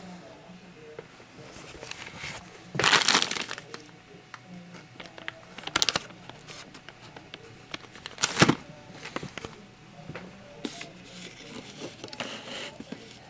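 Handling noise as a scintillation counter and a TV remote are fumbled with: a burst of rustling about three seconds in, then sharp clicks and knocks, the loudest about eight and a half seconds in.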